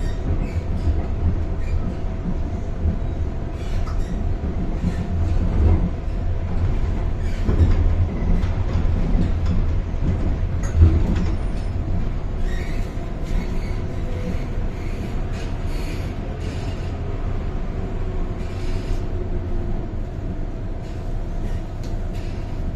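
MTR Island Line M-Train running, heard from inside the carriage: a steady low rumble of wheels on rail under a constant hum, with scattered clicks and one sharper knock about halfway through.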